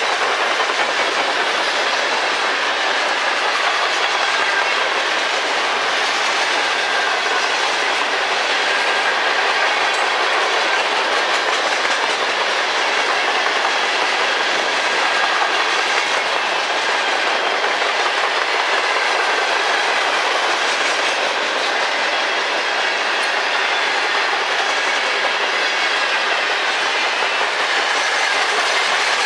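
Freight train of high-sided coke hopper cars rolling past: a steady, unbroken noise of steel wheels running on the rails.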